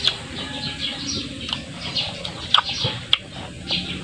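Small birds chirping repeatedly in the background, short falling chirps every half second or so. A few sharp clicks stand out over them, the loudest two about two and a half and three seconds in.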